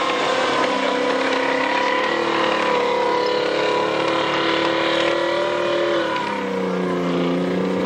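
Abbot 105 mm self-propelled gun's Rolls-Royce six-cylinder engine running steadily under load as the tracked vehicle drives past and away; the engine note shifts about six seconds in.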